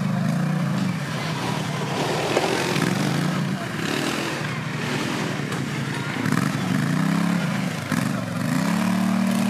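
Quad bike (ATV) engine revving up and down, its pitch rising and falling again and again, most strongly in the second half.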